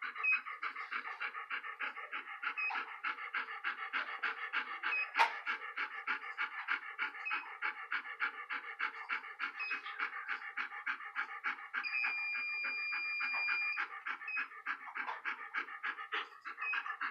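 A large shepherd-type dog panting steadily through a basket muzzle, about three to four pants a second. Over it, the handheld acupuncture pen gives short high beeps every couple of seconds and one longer beep of about two seconds about three-quarters of the way through.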